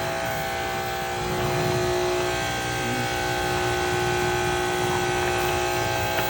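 Ryobi 3000 PSI brushless electric pressure washer running steadily, its motor and pump giving a steady hum with a few held tones over the hiss of water spraying through a 12-inch surface cleaner. For a pressure washer it is not very loud, about 80 decibels.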